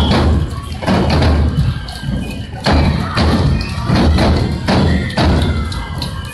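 Neputa-bayashi festival music: large taiko drums beating heavily in groups of strokes, with bright clacking percussion and faint held flute tones above.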